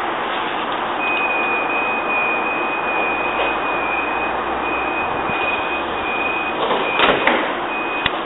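Deutsche Bahn Intercity coaches rolling past a platform: a steady rush of wheel and rail noise, with a thin high squeal that comes and goes. There is a short clatter of knocks about seven seconds in.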